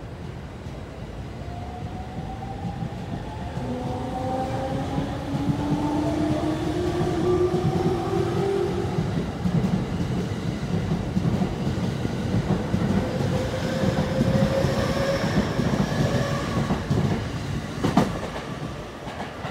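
E231 series 0 electric commuter train pulling away and picking up speed, its inverter-driven traction motors giving several whines that rise in pitch in steps over a growing rumble and clatter of wheels on the rails. A single sharp click about 18 seconds in.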